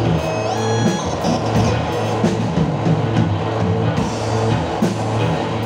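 Live music for modular synthesizer, effects-processed bass guitar and drum kit: a sustained low bass tone under a steady pulse of drum and cymbal strokes. About half a second in, a cluster of high electronic tones glides upward and then holds.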